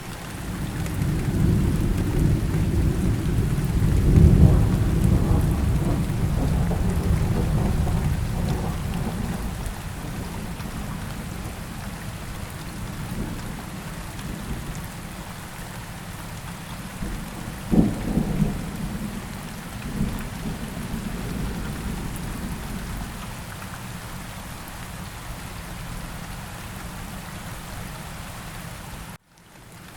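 Steady rain in a thunderstorm. A long, low roll of thunder swells over the first several seconds and is loudest about four seconds in. A sharper thunderclap comes about eighteen seconds in, with a short rumble after it. The sound cuts out briefly just before the end.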